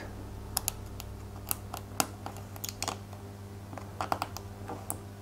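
Irregular small clicks and ticks of a fine metal mesh air-intake grille being bent and pressed into the groove of a small plastic model engine part by hand.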